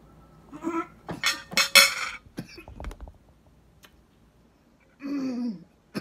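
A person coughing: a cluster of rough, rasping coughs in the first two seconds, then a short vocal sound falling in pitch, like a groan, about five seconds in.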